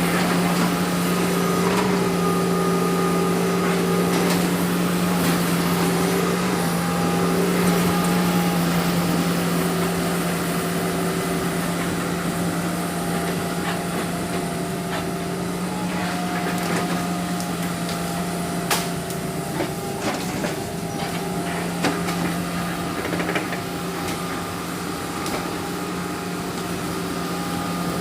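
Excavator's diesel engine running steadily at a constant pitch, with a few sharp knocks and clanks in the second half.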